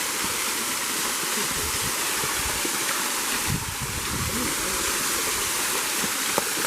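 Small waterfall: water falling and rushing steadily, with a single short click near the end.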